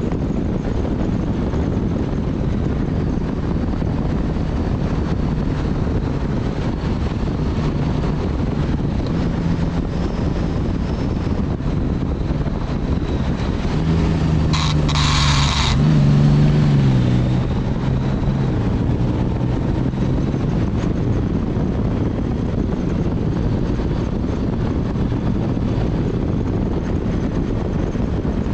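Steady wind rush and engine drone of a motorcycle under way. About halfway through, another vehicle's engine swells louder with a short hiss and then falls in pitch as it goes by.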